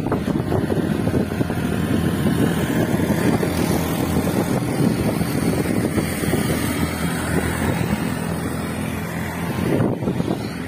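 Engine hum and road noise of a van driving along, heard from inside the cabin, steady throughout with some wind noise mixed in.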